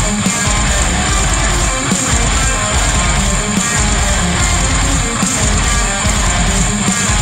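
Loud, dense metalcore music with distorted electric guitars.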